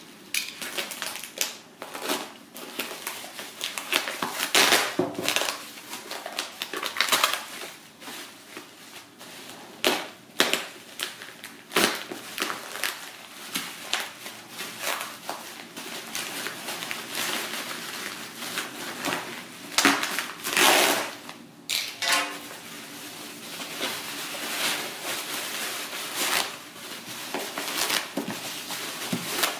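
Bubble wrap and plastic packaging crinkling and rustling in irregular bursts of crackles as a taped parcel is cut open and unwrapped by hand.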